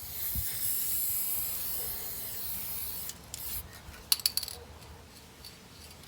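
Aerosol can of spray enamel hissing in one steady spray for about three seconds, then stopping; a few sharp clicks follow.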